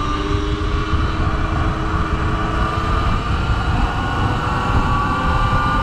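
Riding a Sur-Ron electric dirt bike in traffic: steady rumbling wind noise on the microphone, with a motor whine that slowly rises in pitch.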